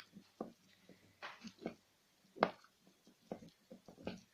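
A spoon stirring a musk stone into moisturising cream in a jar, with irregular taps and short scrapes against the container.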